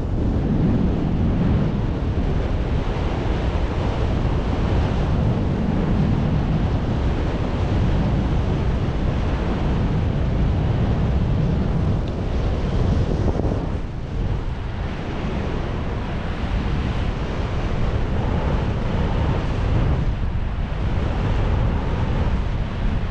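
Wind buffeting the microphone: a loud, steady rushing noise, heaviest in the low end, easing slightly for a moment about two-thirds of the way through.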